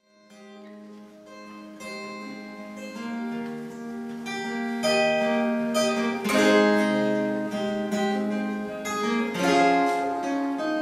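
Steel-string acoustic guitar playing a song's instrumental intro, picked notes and strummed chords over a held low note. It starts from silence and grows louder over the first few seconds.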